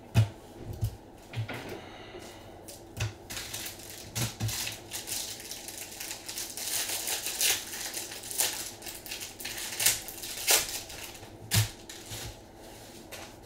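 Foil card-pack wrappers crinkling and rustling in gloved hands, with scattered sharp clicks and taps as packs and a plastic card holder are handled on the table.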